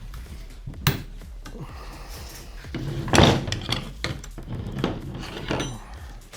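Metal parts of a car's stock gear shifter assembly being handled and worked by hand: a sharp click about a second in and a loud clunk about three seconds in, with smaller knocks and rattles between.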